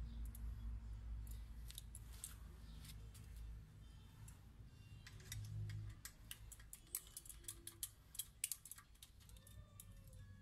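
Faint, sharp clicks and light metallic taps of a hand tool working the screw on a motorcycle's exhaust heat shield, coming thick and irregular in the second half, over a low hum that drops away about four seconds in.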